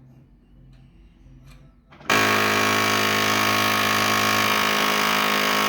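Faint clicks, then about two seconds in a faulty Brother printer's mechanism starts a loud, steady grinding that holds to the end.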